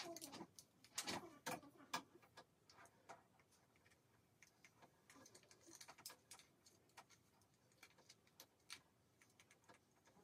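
Near silence with faint, irregular clicks and rustles as a clamp curling iron is handled and hair is wound around its barrel.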